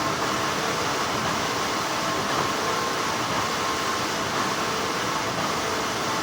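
Steady hum of textile factory machinery: an even mechanical noise with faint steady tones running through it.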